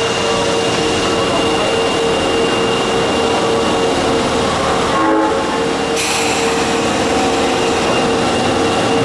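Electric subway train moving at the platform: a loud, steady rushing noise of the train running, with a constant electric whine held throughout.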